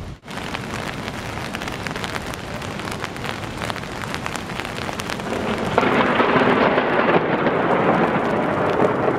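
Heavy rain falling in a thunderstorm, a dense hiss full of close drop hits; the downpour grows louder about six seconds in.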